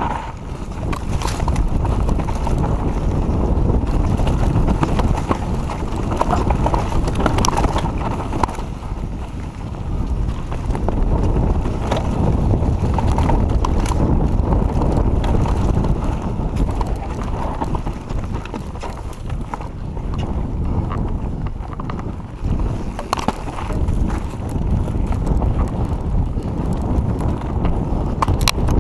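Giant Reign enduro mountain bike descending a dirt trail at speed: wind buffeting the camera microphone and tyres rumbling over the dirt, with scattered sharp clicks and knocks from the bike over bumps.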